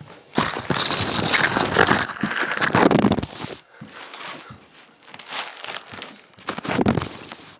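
Loud crinkling, rustling noise for about three seconds, then scattered quieter clicks and rustles, with a second short burst of rustling near the end. No alarm tone sounds.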